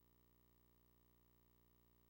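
Near silence: only a faint, steady hum of the recording's noise floor.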